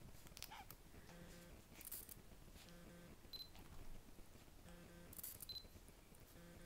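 Near silence: Havanese puppies scuffling on a quilted bedspread make only faint rustles and a few soft clicks. Under them a faint low tone pulses about every two seconds.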